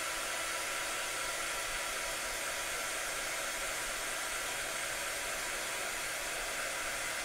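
Hand-held hot-air dryer blowing a steady, even hiss, held close over paper to dry a fresh layer of Posca paint-marker colour.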